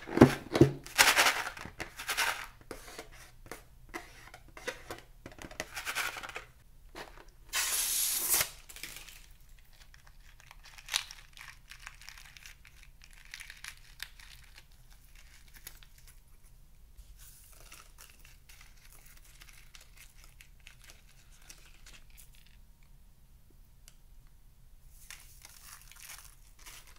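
Hands handling and cutting open a filled rubber balloon. It crinkles and squeaks loudly in the first couple of seconds, a short noisy burst comes about eight seconds in, then quieter crinkling and snipping follows, with faint sprinkling of beads near the end.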